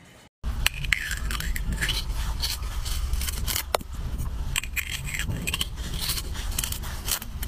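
Steel melon baller scraping and carving into the firm flesh of a green squash, a dense run of rasping, crunching scrapes with many small clicks, over a low rumble.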